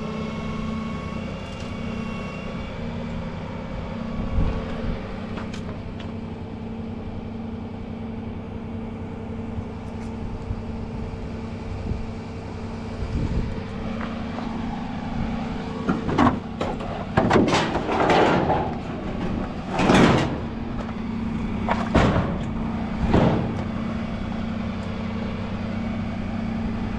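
Truck engine running steadily, with a cluster of loud scrapes and bangs in the second half.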